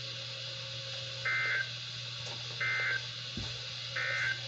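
Three short bursts of Emergency Alert System SAME data tones, the end-of-message code that closes the weekly test, a little over a second apart, over a steady hiss of weather-radio reception.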